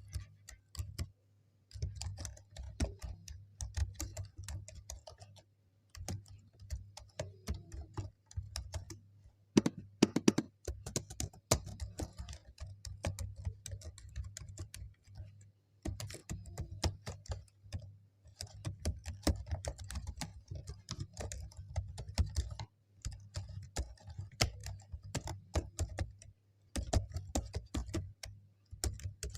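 Typing on a computer keyboard: quick runs of key clicks broken by short pauses, with a louder flurry of keystrokes about ten seconds in.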